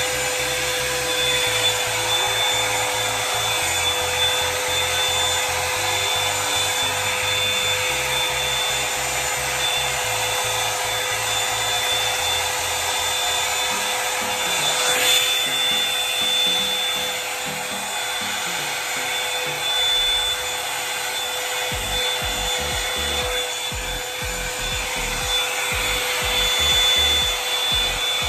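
Hot Tools One Step Blowout Volumizer hot-air brush running steadily on its high setting: the rush of air from the dryer with a high, even motor whine.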